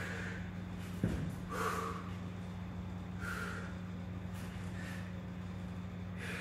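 A man's short, sharp breaths, a puff every second or two, over a steady low hum, with a single thump about a second in.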